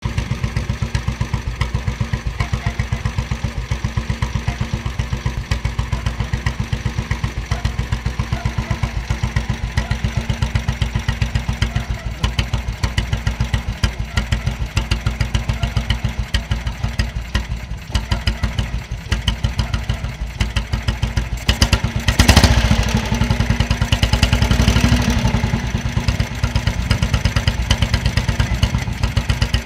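1936 NSU motorcycle engine idling with a slow, even beat of about three to four pulses a second. It is revved briefly about two-thirds of the way through, getting louder and faster, then drops back to idle.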